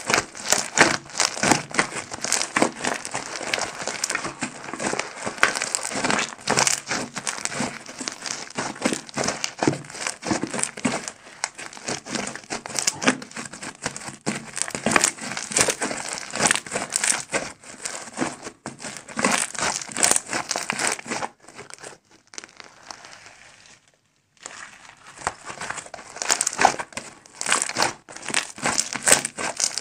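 Fluffy dish-soap slime squeezed, kneaded and stretched by hand, giving dense crackling clicks. It stops for about three seconds about two-thirds of the way through, then starts again.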